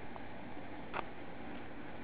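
Steady mechanical running of the motor-driven cutaway Pratt & Whitney R-4360 radial display engine turning its exposed internals slowly, with a single sharp click about a second in.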